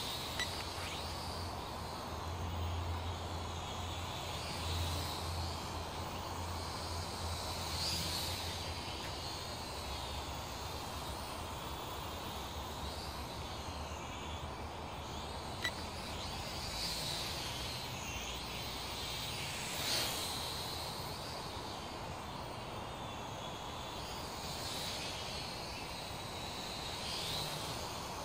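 Motors and propellers of a small Syma toy quadcopter whining in flight, swelling and fading over and over as it moves about and the throttle changes.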